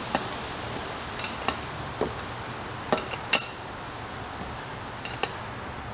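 A 19 mm open-end wrench clinking against a hose fitting on an oil catch can as it is repositioned turn by turn to tighten the fitting. Scattered light metallic clicks, about eight in all, the loudest a little past three seconds in.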